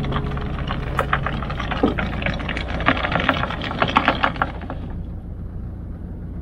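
A quick, irregular run of clicks and knocks from gear being handled at a sailboat's bow, over a low steady hum. The clatter dies away about five seconds in, and the sound fades down.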